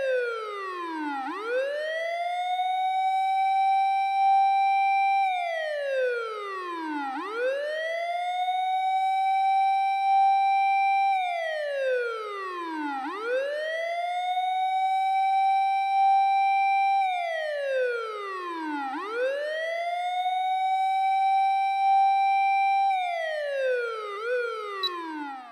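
Japanese fire engine siren wailing: a high held note slides slowly down, then sweeps quickly back up and holds, repeating about every six seconds. Near the end there is a click and the siren winds down and stops.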